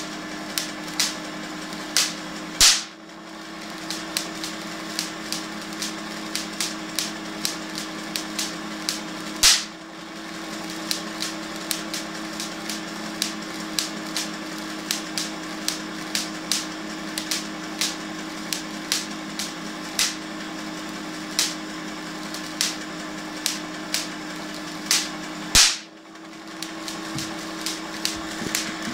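Van de Graaff generator running with a steady hum while small electric sparks snap irregularly, one to three a second. Three much louder spark cracks, about three seconds in, near ten seconds and near the end, come as the milk-container Leyden jar discharges to an earthed ball bearing, and the hum dips briefly after each.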